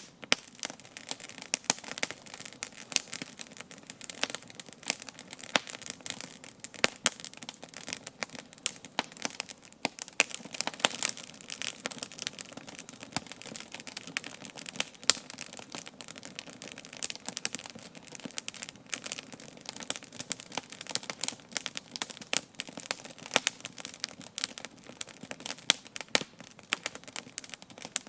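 Wood campfire crackling, with dense, irregular pops and snaps.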